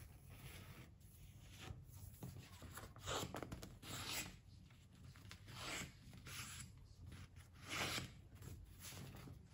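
A sheet of paper rustling and rubbing as it is pressed into a crease on a tabletop and then lifted and unfolded, in a few short soft swishes.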